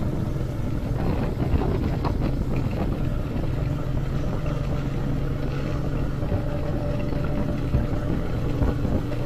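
Royal Enfield Meteor 350's single-cylinder engine running steadily at cruising speed, with wind and road noise on the rider's microphone.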